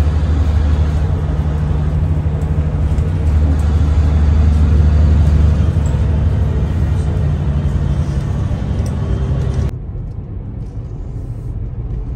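Road vehicle's engine running with a steady low drone over road noise, dropping suddenly to a quieter hum about ten seconds in.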